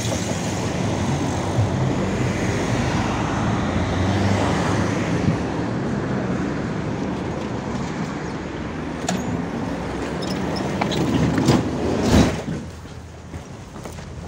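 71-605 (KTM-5) tram running: a steady rumble of motors and wheels on the rails, with a few sharp clicks and a louder knock about twelve seconds in, after which it goes quieter.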